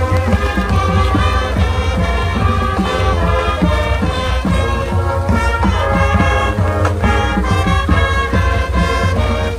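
High school marching band playing its field show, brass horns carrying the music.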